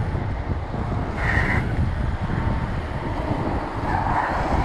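Wind buffeting an action camera's microphone with tyre rumble from a BMX bike rolling fast downhill, a steady low rushing noise.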